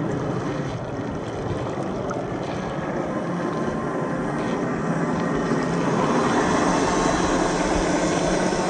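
A 1/10-scale RC crawler's 540-size brushed electric motor and drivetrain whining steadily while its tyres push through muddy water, splashing. The sound grows louder over the second half.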